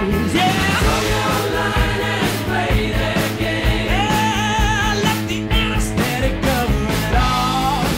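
Background rock music with a singing voice over a steady drum beat.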